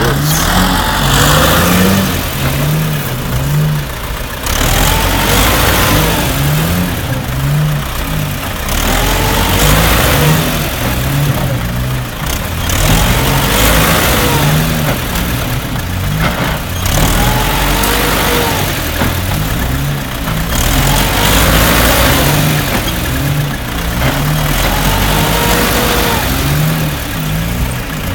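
Vehicle engines running hard under load, the revs rising and falling again and again about every two to three seconds, as a Mercedes G-Class and a tractor pull against each other.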